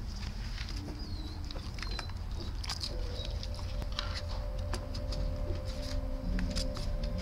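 Newborn puppies suckling at their mother: scattered soft wet clicks and smacks over a steady low rumble.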